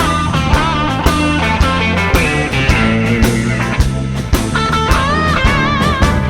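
Blues-rock music, an instrumental passage: electric guitar lead over a steady drum beat, with bent, wavering guitar notes in the second half.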